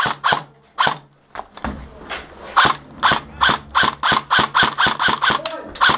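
Airsoft rifle firing single shots in sharp clicks: a few scattered shots at first, then after a short pause a quick, even string of about four shots a second.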